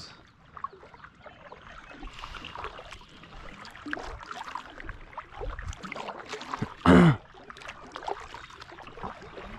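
Kayak paddle strokes in calm water: soft dips, splashes and drips against the hull. About seven seconds in comes a brief, loud vocal noise close to the microphone.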